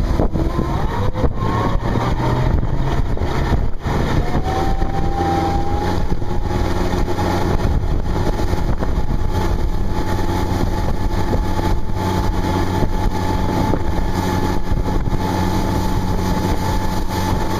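Boat engine running under way, rising a little in pitch about four seconds in and then holding steady, with wind noise on the microphone.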